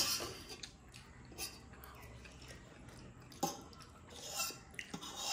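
Soft chewing and mouth sounds of someone eating momo dumplings, with a few short clicks and knocks about three and a half seconds in and again near the end.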